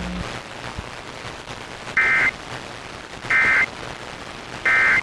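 Emergency Alert System end-of-message code: three short bursts of the warbling two-tone digital data signal, about 1.3 s apart, over a faint hiss. It marks the end of the flash flood warning broadcast.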